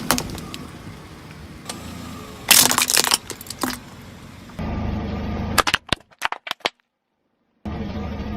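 Sharp cracks and crunches of something being crushed, in several clusters, over a low steady hum. The sound cuts out completely for under a second shortly before the end.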